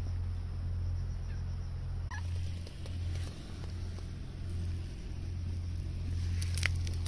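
Cat purring close up while being stroked: a low, even rumble that swells and dips about once a second with its breathing.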